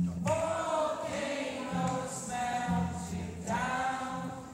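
A large group of voices singing a slow chorus together in two phrases, with a short break between them near the middle.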